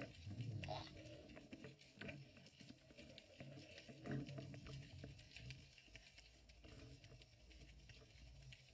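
Faint, muffled underwater rumble with scattered small clicks and a few soft knocks, heard through a GoPro's waterproof housing hanging on a line in the sea.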